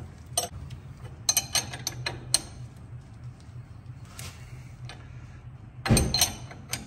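21 mm ratcheting wrench clicking in short runs as it turns the castle nut down on a tie rod end stud, with a louder metal clank about six seconds in.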